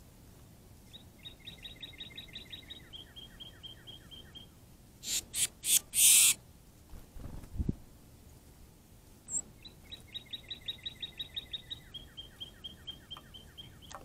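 A songbird sings a rapid trill twice, a fast run of repeated notes that slows toward the end. Around the middle come three or four loud, harsh noise bursts, the loudest sound here.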